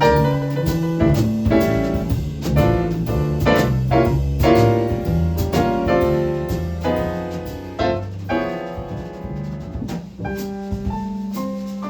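Jazz ballad played on piano: slow chords over low bass notes, thinning near the end to a held low note under single melody notes.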